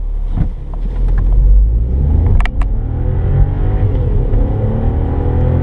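Audi A1 1.0 TFSI turbocharged three-cylinder engine accelerating hard, its note climbing, dropping back at a gear change about four seconds in, then climbing again. A couple of sharp clicks sound about two and a half seconds in.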